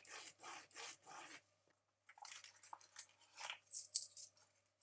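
A handheld object rubbed with a rhythmic rasp, about four strokes in the first second and a half, then after a short pause a scatter of faint rustles and clicks.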